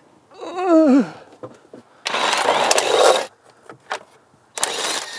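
A short falling whine, then two bursts from a cordless power tool working on engine-bay fasteners, the first about a second long and the second about half a second near the end.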